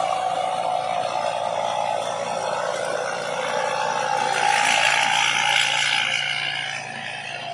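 Combine harvester running with a steady engine drone and a whine, swelling louder for a couple of seconds past the middle.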